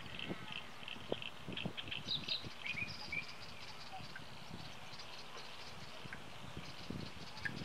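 Birds chirping in the background: a quick run of repeated short chirps, then a few short rising and falling whistled notes, over an irregular low rumble.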